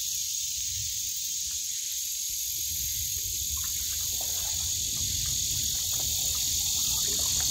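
Steady chorus of insects in summer woodland: a continuous high buzz that holds at the same level throughout, over a faint low rumble.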